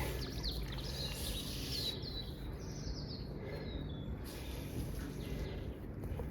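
A songbird singing: short high chirps, then a quick run of falling notes about halfway through, over steady low outdoor background noise.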